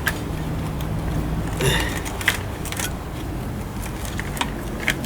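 Small clicks and rattles of wiring-harness connectors and loose wires being handled and plugged in, with a denser rattle about two seconds in, over a steady low hum.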